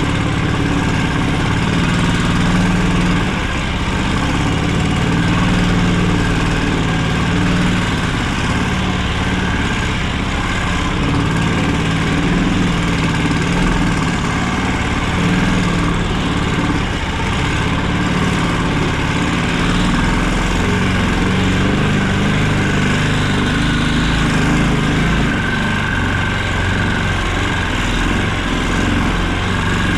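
Engine of a karakat, a homemade all-terrain vehicle on low-pressure tyres, running steadily while under way.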